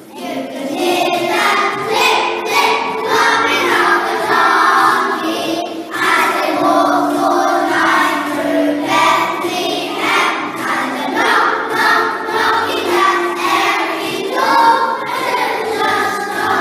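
A children's choir singing together, phrase after phrase, with a short break about six seconds in.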